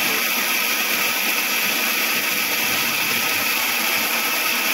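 Electric mixer grinder running steadily at full speed, grinding dry roasted fenugreek seeds, nigella seeds and black peppercorns to powder in its jar.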